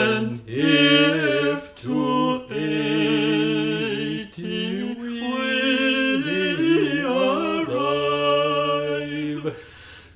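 Unaccompanied singing of an early American hymn-setting, in long held notes with short breaks between phrases.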